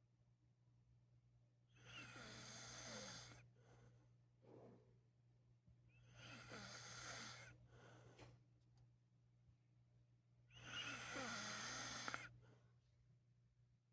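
A sleeping person snoring quietly: three long snores about four seconds apart, with fainter breaths between them.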